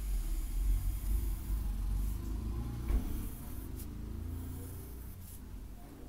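Graphite pencil drawing long curved strokes on paper, over a steady low rumble, with one sharp click about three seconds in.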